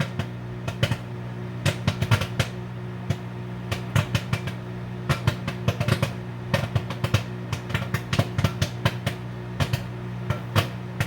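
Popcorn kernels popping in a brown paper bag inside a running microwave oven: irregular sharp pops, a few a second, over the oven's steady hum. The popping is thinning out as the batch nears done.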